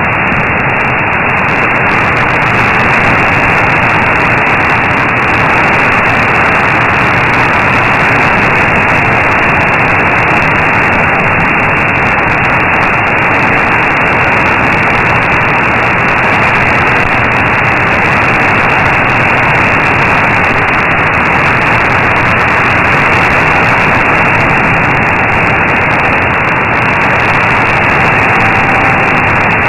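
Steady shortwave static heard through an AM receiver tuned to 15476 kHz, an even hiss with nothing above about 3 kHz; the weak LRA 36 broadcast has faded down into the noise.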